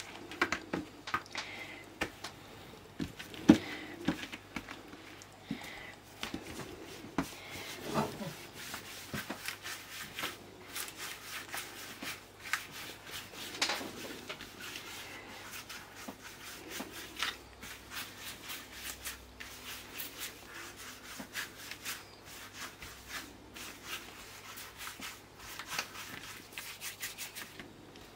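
Hands rolling soft yeast dough into long ropes on a plastic oilcloth tablecloth: a soft rubbing broken by frequent light taps and clicks. It starts with a knife cutting the dough, and there are a few louder knocks, the loudest about three and a half seconds in.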